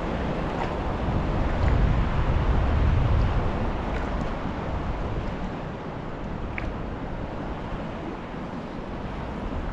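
Wind rumbling on the microphone over the wash of sea water around a kayak, with a few faint ticks. The wind swells about a second in and eases off after a few seconds.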